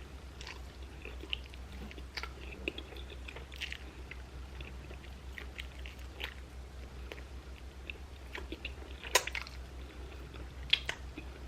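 Someone chewing food close to the microphone: quiet wet mouth sounds and small crackles, with two sharper clicks near the end.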